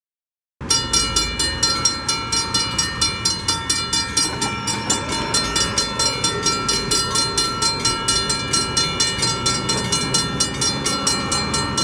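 Railroad grade-crossing warning bell ringing in a fast, even rhythm of about four strikes a second, starting about half a second in: the crossing signal warning of an approaching train.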